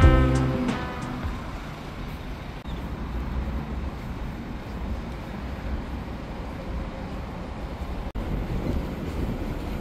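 Background music ends about a second in, giving way to a steady low rumble of vehicle noise, with a brief cutout near the end.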